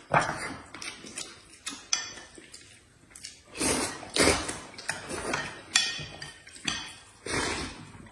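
Someone eating noodles from a bowl: irregular clicks and knocks of utensils against the bowl, mixed with noisy eating sounds, louder in the second half.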